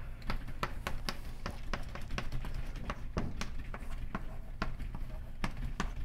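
Chalk writing on a blackboard: a string of irregular sharp taps and short scrapes, a few a second, over a steady low room hum.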